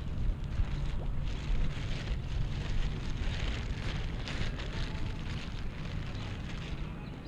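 Plastic bag crinkling and rustling as hands work it open, starting about a second in and fading near the end, over a steady low rumble of wind on the microphone.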